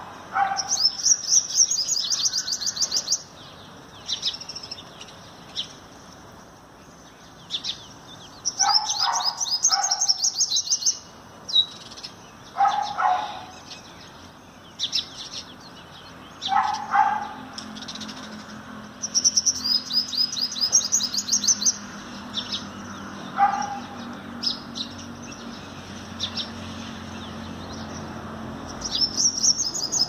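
Purple sunbird singing: four bouts of rapid, high-pitched twittering, each lasting two to three seconds. Between the bouts a lower, shorter call sounds several times.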